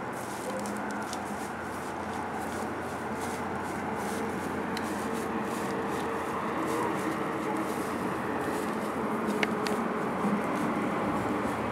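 Steady outdoor background noise: a low hum and hiss with a few faint ticks, two of them close together a little after halfway.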